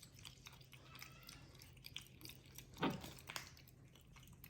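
Faint, irregular crunching clicks of capuchin monkeys chewing cashews, with one louder sharp knock about three seconds in.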